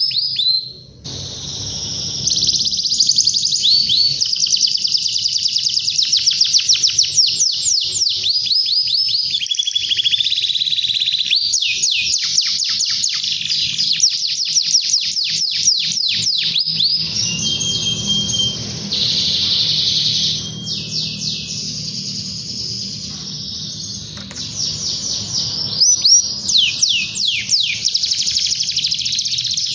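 Domestic canary singing a long, nearly unbroken high-pitched song of fast rolling trills, with a short pause about a second in.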